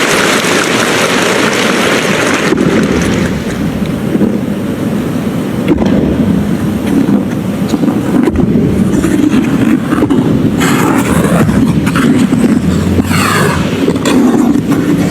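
Figure skate blades gliding and carving over the ice, a continuous loud hiss and rumble with harder scraping strokes that spray ice shavings, the brightest scrape in the first couple of seconds.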